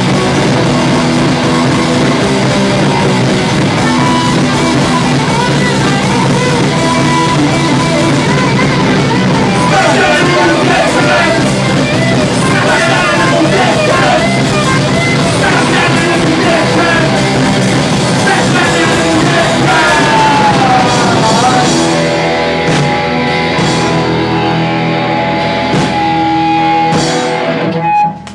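Punk band playing live: electric guitars, drum kit and two men singing and shouting into microphones. The top end thins out in the last few seconds and the song stops abruptly near the end.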